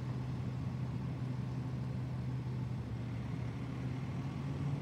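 Recycling truck's engine idling with a steady low hum.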